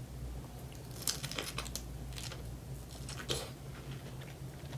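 Close-up mouth sounds of someone biting and chewing fresh strawberries: a handful of short clicks and smacks between about one and three and a half seconds in.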